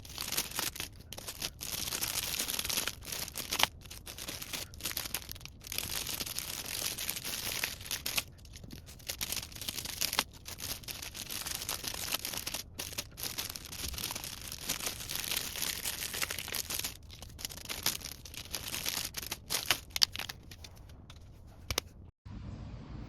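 Rustling and tearing of handled material in irregular stretches separated by short pauses, until a sudden cut near the end.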